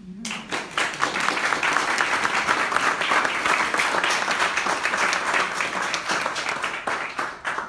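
Audience applauding at the end of a lecture, with one person's hand claps close by. The clapping starts almost at once, holds steady, and thins out near the end.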